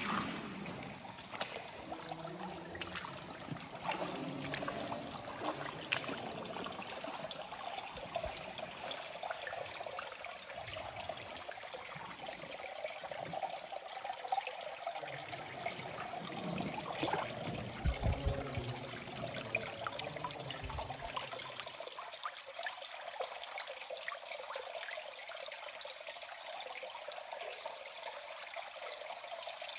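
Shallow cave stream trickling and running steadily, with scattered sharp clicks and knocks.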